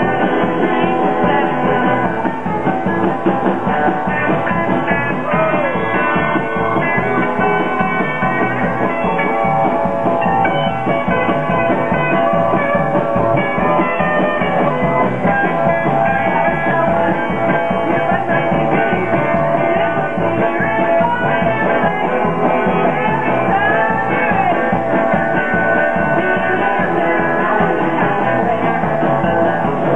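Live rock band playing with electric guitars and a drum kit keeping a steady beat.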